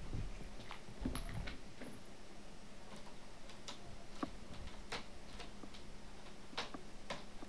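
A kitten and a cat scuffling on a sofa: two soft thumps about a second apart near the start, then scattered sharp clicks and taps of paws and claws as the kitten scrambles about.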